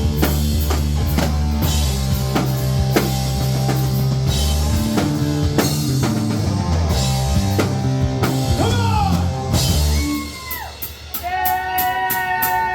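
Live rock band playing with drum kit, bass and guitar. About ten seconds in, the bass and drums drop away, leaving guitar bends and a long held, wavering guitar note over quick cymbal taps.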